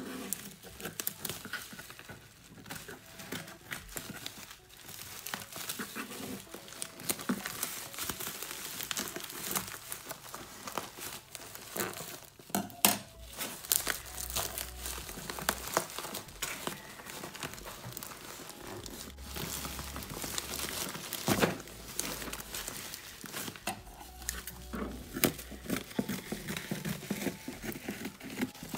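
Plastic bubble wrap crinkling and rustling as it is handled and pulled away from a cardboard box, with irregular sharp crackles throughout.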